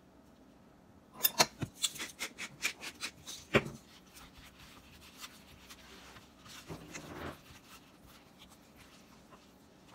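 Hands seasoning and rubbing oiled spaghetti squash halves on a metal sheet pan: a quick run of small clicks and taps starting about a second in, one sharper knock, then a short rubbing sound near the middle.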